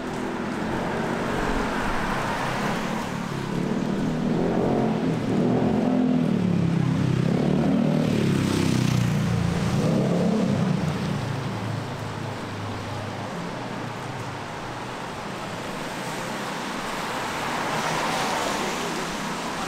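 A car's engine running low and slow as it passes close by, rising to its loudest midway and then fading, over a steady hiss of tyres on wet pavement.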